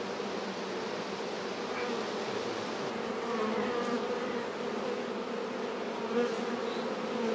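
Honeybee swarm on the ground buzzing steadily as the bees begin to stir after being smoked toward a nucleus hive.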